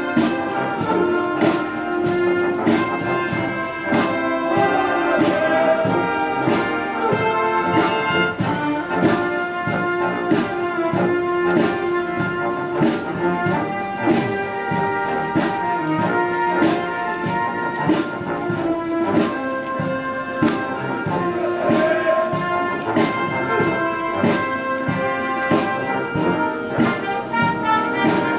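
Brass band playing with a steady beat, trombones and trumpets to the fore.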